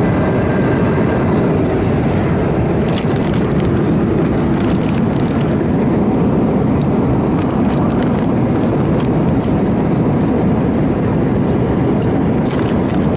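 Steady, loud low rushing noise of an airliner cabin in flight: engine and airflow noise. Scattered light clicks and crackles come in from about three seconds in.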